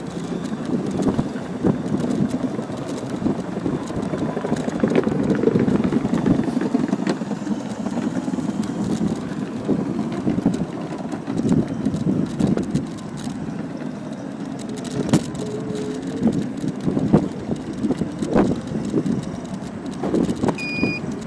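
Small wheels of electric scooters rolling over concrete paving slabs at riding speed: a continuous rough rumble, with a sharp knock here and there as the wheels cross joints and bumps.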